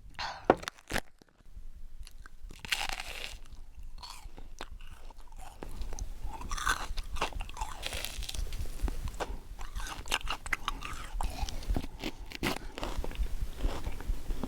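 Close-miked mukbang eating sounds: wet chewing and smacking of yellowtail sashimi, with many short clicks and crunchy mouth noises.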